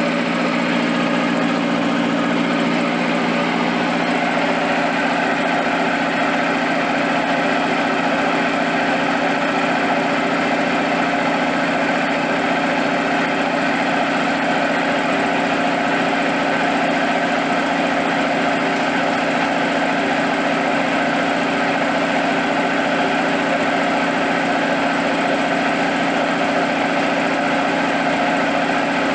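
U43102 belt-driven piston air compressor, powered by a 3 kW electric motor, running steadily under load as it pumps up its receiver tank, the pressure climbing to about 5 bar.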